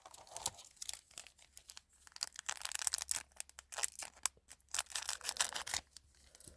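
Foil wrapper of a Yu-Gi-Oh booster pack crinkling and tearing as it is opened, with irregular crackles that come thickest from about two seconds in.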